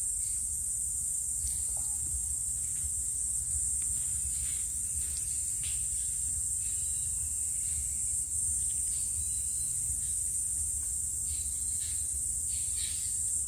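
Steady, high-pitched chirring of crickets, with a few faint clicks from a spanner tightening the oil dipper bolt on the engine's connecting rod.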